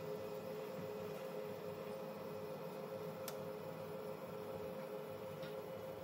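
Ultimaker S5 3D printer humming steadily during automatic bed leveling, a faint hum of two close tones, with a couple of faint ticks.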